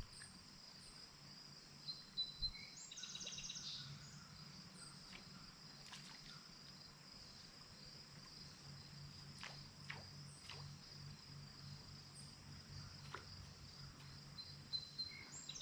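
Faint, steady chorus of insects, with a short buzzy trill about three seconds in and a few faint clicks.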